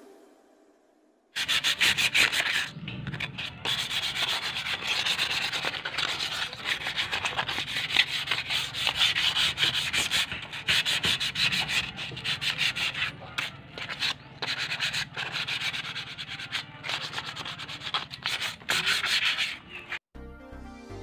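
Hand-sanding the rusty exhaust pipe of a Yamaha Mio i125 scooter with an abrasive, a rough scraping made of quick back-and-forth strokes with short breaks between them. It is the rust being rubbed off before repainting. It starts about a second in and stops just before the end.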